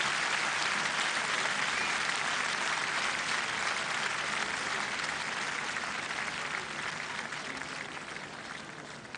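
Large concert audience applauding, a dense patter of many hands clapping that slowly dies down over the last few seconds.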